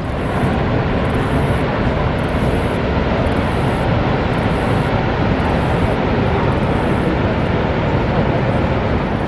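Niagara Falls roaring: a loud, steady rush of falling water with no let-up.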